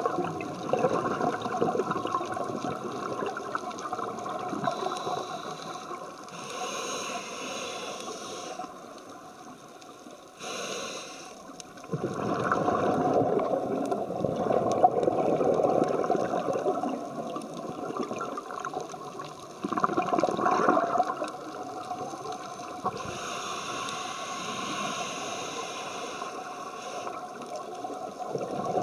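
A scuba diver breathing through a regulator underwater: exhaled bubbles gurgle in surges that come and go, with stretches of higher hiss between them.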